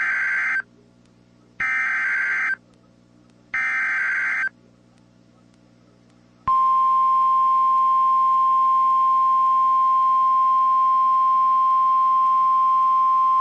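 NOAA Weather Radio SAME alert header: three roughly one-second bursts of buzzy digital data tones, about a second apart. After a short pause, the steady 1050 Hz warning alarm tone comes in and holds, marking the start of a severe thunderstorm warning broadcast.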